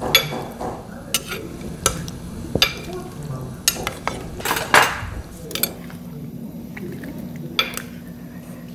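Metal tongs clicking and scraping against a pot while a boiled whole chicken is pulled apart in its broth. The clicks come irregularly, most of them in the first five seconds, over wet sloshing of meat and liquid.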